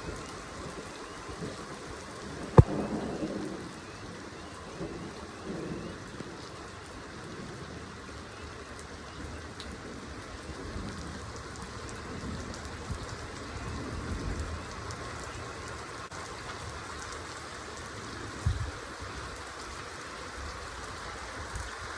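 Steady rain falling, with a sharp crack of thunder about two and a half seconds in that trails off into rumbling, and fainter low thunder rumbles later on.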